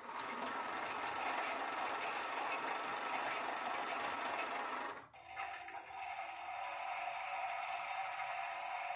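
Toy washing machine's small electric motor running as the drum spins, with a light rattle. It cuts out briefly about five seconds in, then runs on with a steadier, more even tone.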